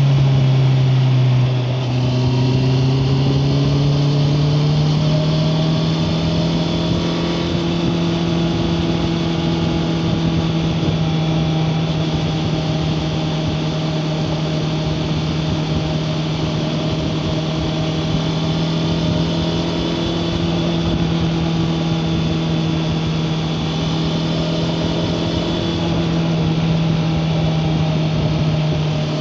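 Honda CBR650R's inline-four engine under way, heard from a recorder in the rider's backpack. Its note dips in the first couple of seconds, climbs back over the next few, then holds steady at cruising revs.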